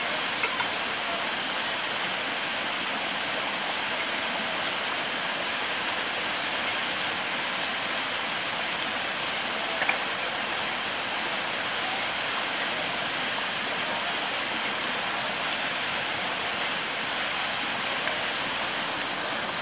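Wood campfire burning with a steady hiss and scattered small crackles, with a louder pop about half a second in and another near ten seconds.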